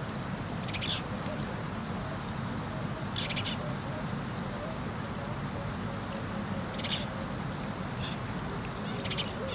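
South African wetland ambience: an insect trilling in a high steady tone in pulses about once a second, with short rasping bird calls every few seconds over a low steady background noise.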